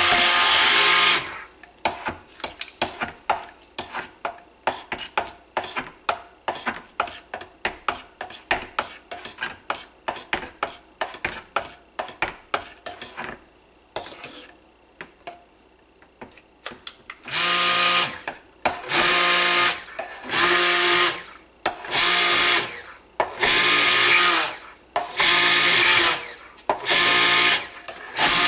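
Immersion stick blender in thick soap batter in a crock pot. It runs for about a second, then gives rapid taps, about three or four a second, as the blender head is worked round the crock while switched off. From about two-thirds of the way in it is pulsed in short bursts of about a second each as the batter thickens toward thick trace.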